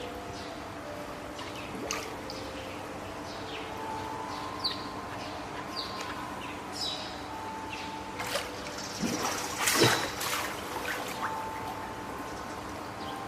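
Water splashing and trickling in a seal pool, with many small drips and one louder splash about ten seconds in.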